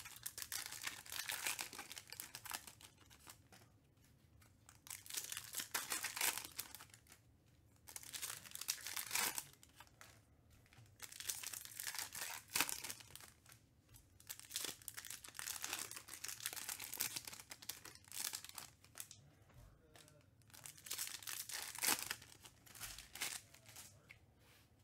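Trading card packaging being torn open and crinkled: foil pack wrappers and plastic ripped and crumpled by hand, in about six bouts of rustling a second or a few seconds long, with short quiet gaps between.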